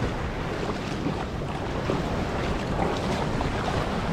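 Surf washing in the shallows and wind buffeting the microphone, with a few light splashes of bare feet wading through shin-deep seawater.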